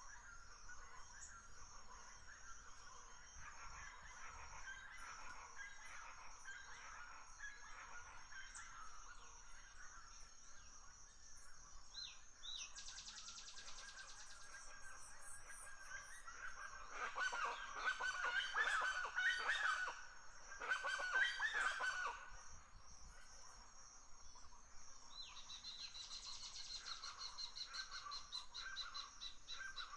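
A flock of birds calling over and over, with many calls overlapping and growing loudest for a few seconds in the second half. A steady high-pitched trilling runs behind them.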